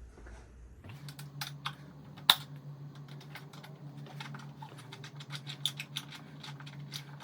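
Tool clicking while loosening the fasteners that hold the tail piece of a Honda CRF300L: a quick, irregular run of small metallic clicks and ticks, with one sharp louder click about two seconds in, over a faint steady hum.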